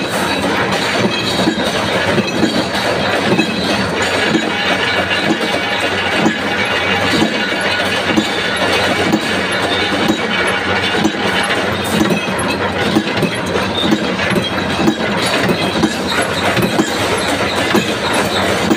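Gear-driven mechanical punch press running continuously, its ram repeatedly stamping washer blanks out of a steel strip in a steady, rapid rhythm of metal strokes.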